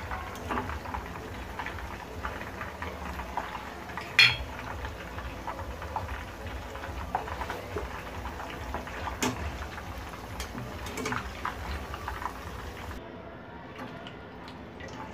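Chicken pieces deep-frying, the oil bubbling and sizzling, with metal clinks and knocks of a wire spider skimmer and slotted spoon against the pan. The loudest knock comes about four seconds in, and the frying quietens near the end.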